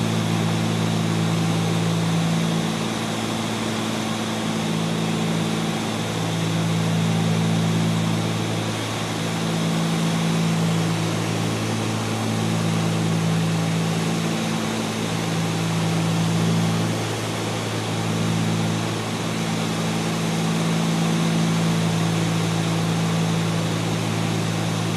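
Cessna 310's twin six-cylinder piston engines and propellers droning steadily, heard inside the cabin with airflow noise, on final approach to land. The drone swells and eases slowly every few seconds.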